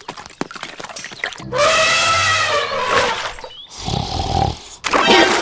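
An animal call: light clicks, then one long pitched cry about a second and a half in, followed by a shorter steady tone.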